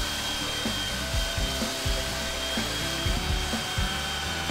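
Handheld electric belt sander running steadily across a plywood deck, sanding dried patching compound flush at the seams, with a steady whine over the sanding noise. Background music plays underneath.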